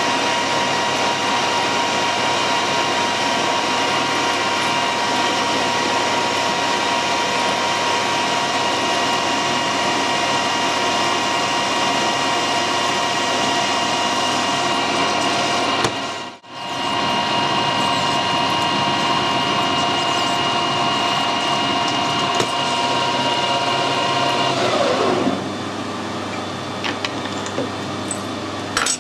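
Metal lathe running and turning a stainless steel stud, a steady machine whine with the cutting noise of the tool, broken off for a moment near the middle. About 25 seconds in the lathe is switched off and its whine falls away as the spindle runs down, leaving a quieter steady hum.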